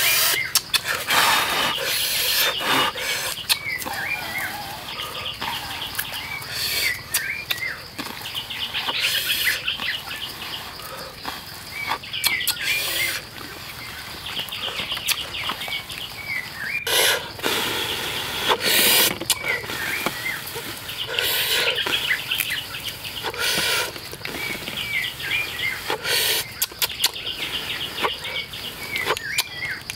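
Forest ambience: a bird repeats a short chirping call every few seconds over a steady insect buzz, with brief louder bursts of noise scattered through.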